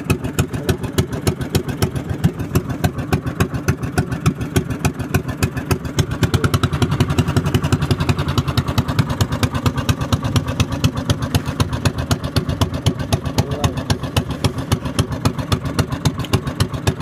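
A small boat engine running steadily with a fast, even chugging beat.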